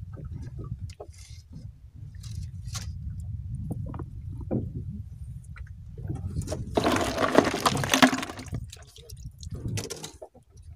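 Water lapping against a small wooden fishing boat while a longline is hauled in by hand, with scattered light knocks and a loud rubbing noise lasting about two seconds in the middle.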